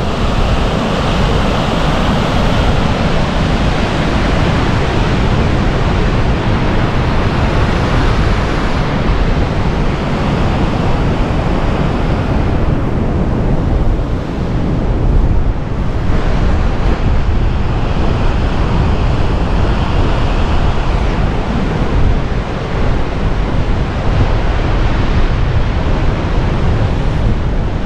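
Steady roar of a 90-foot waterfall, White River Falls, with wind buffeting the microphone.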